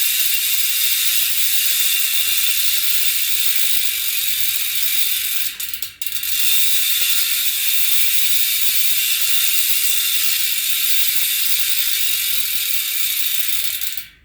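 Sagmit M120 ratchet-type bicycle hub freewheeling, its ratchet giving a loud, steady buzz of rapid clicks. There is a short break about six seconds in, and it stops just before the end.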